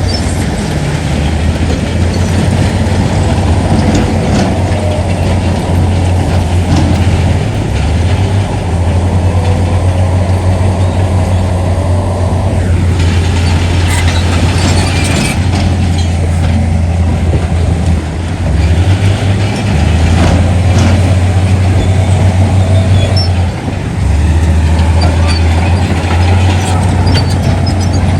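Heavy diesel earthmoving machinery running under load, with a deep engine drone that shifts up and down in speed several times. Scattered metallic knocks, and a burst of higher hiss and clatter about halfway through.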